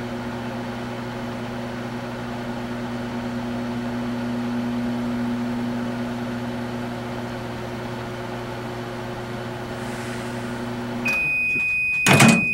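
Microwave oven running with a steady low electrical hum, which cuts off about 11 seconds in as a long, high, steady beep sounds to mark the end of the cycle. A short clunk comes about a second into the beep.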